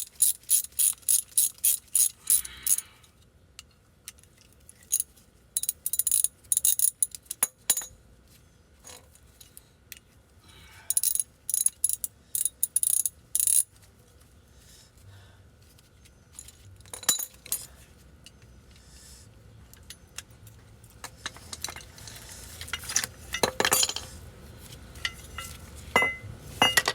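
Hand ratchet wrench clicking at about four clicks a second, in several short runs as a brake caliper bolt is turned, followed near the end by scattered metal clinks and knocks of tools and parts.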